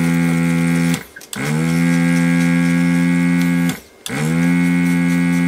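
Vacuum pump of an electric desoldering gun switched on and off in bursts, sucking solder from a switch's pins: a steady hum that stops about a second in, runs again for a couple of seconds, and starts once more near the end. Each start is a quick rising whine as the pump motor spins up.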